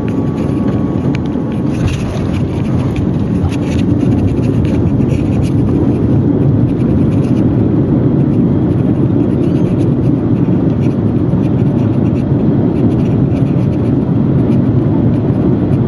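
Boeing 787-9 airliner landing, heard from inside the cabin: a loud, steady rumble with a few knocks in the first seconds of what is captioned a fairly rough landing. The rumble grows louder about four seconds in as the jet rolls out on the runway.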